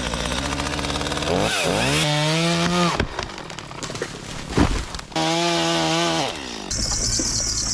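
Chainsaw running, revved up to full throttle twice for a second or so each and dropping back to idle in between, with a hiss near the end.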